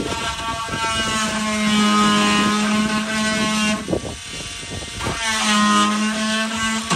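Oscillating multi-tool cutting into the end of a primed wooden door jamb in repeated passes to notch it. Its steady buzz sags in pitch as the blade bites and picks back up, and it eases off briefly a little past the middle.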